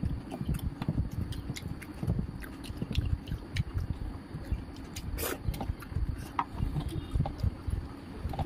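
Close-miked chewing and mouth sounds, with scattered light clicks and scrapes of fingers mixing food on a steel plate. One sharper click about five seconds in.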